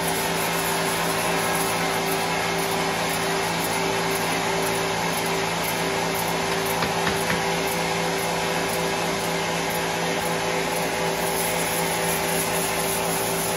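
Horizontal band sawmill running steadily: an even mechanical hum and whine from its electric drive motor and blade, without letting up.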